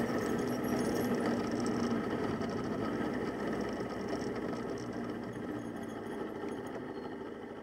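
Motorcycle engine running steadily as the bike rides along, recorded by an onboard camera. The riding footage is played back at double speed. The sound slowly fades out toward the end.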